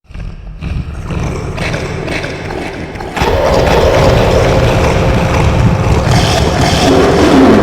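Monster roar sound effect: a rumbling growl starts abruptly, then swells into a loud, sustained roar about three seconds in.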